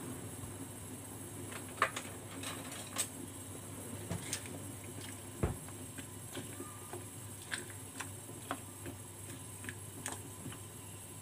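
Chopsticks clicking and scraping against the side of a stainless steel pot as choi sum is pushed down into the water, in irregular sharp ticks over a steady low hum.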